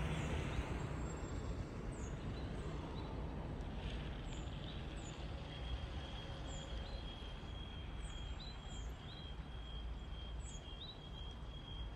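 Low, steady rumble of distant vehicles, slowly fading, with scattered short high bird chirps. From about halfway a thin steady high whine joins in.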